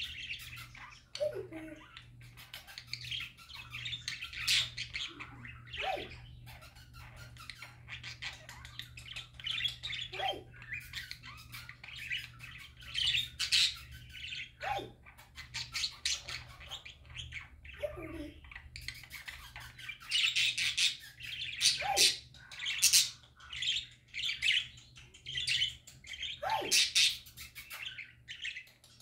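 Budgerigars chattering and warbling without pause, a dense mix of quick clicks, chirps and squawks, with a short downward-sliding note every few seconds.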